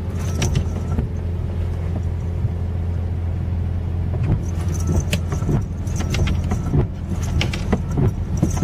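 Steady low mechanical drone with repeated metallic jingling and clicks on top, the clicks coming thicker in the second half.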